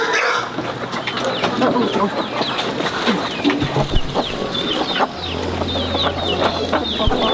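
Chickens clucking, with many short, high, falling cheeps overlapping throughout.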